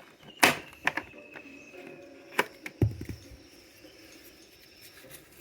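A few sharp clicks and knocks, with a low thump about three seconds in.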